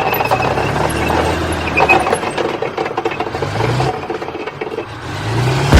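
Tank on the move: its engine running and revving up about three times, with clattering tracks and a steady high whine. A loud boom starts right at the very end.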